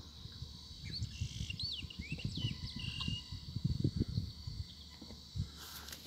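A few short bird chirps and quick up-and-down calls, mostly in the first half, over an irregular low rumble. A hiss comes in near the end.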